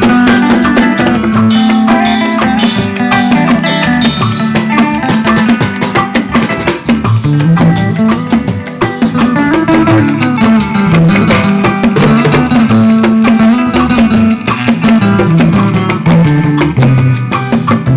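Live band playing: guitar over a moving bass line, with a drum kit keeping time. The instruments are being sound-checked.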